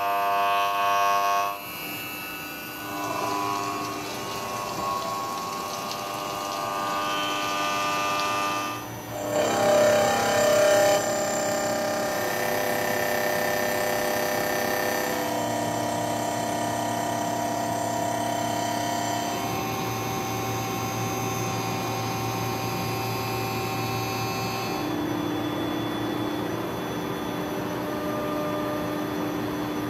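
CNC turn-mill machine cutting a metal part: the spindle and cutter give a steady, pitched whine with many overtones that shifts abruptly to new pitches every few seconds as the cut changes. It is loudest about a second in and again around ten seconds in.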